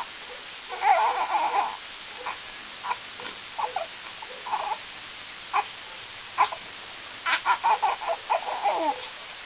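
Newborn baby fussing and crying: a longer cry about a second in, scattered short whimpers, then a quick run of short cries near the end.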